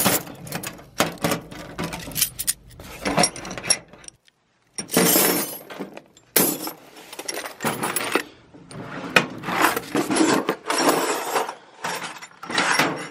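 Metal hand tools, screwdrivers and nut drivers, clinking and clattering against each other and the steel drawer of a rolling tool chest as they are handled and rummaged through, with a short break about four seconds in.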